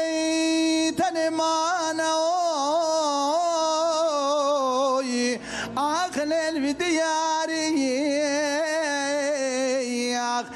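Unaccompanied Kurdish dengbêj singing by one man: long held, melismatic notes with quick wavering ornaments, with a short break about a second in and a breath about halfway through.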